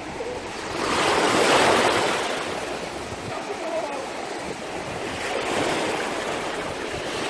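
Small Baltic Sea waves breaking and washing in at the water's edge, swelling about a second in and again around five seconds.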